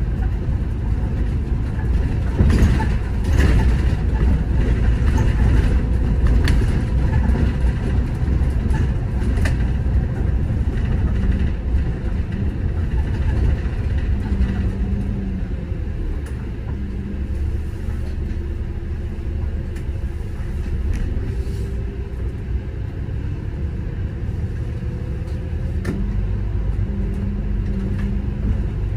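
City bus driving: a steady low rumble of engine and road noise, with a few sharp clicks in the first ten seconds.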